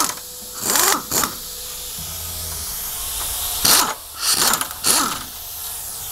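Cordless power tool backing off the 13 mm bolts on a catalytic converter's exhaust flange, run in several short bursts that speed up and slow down.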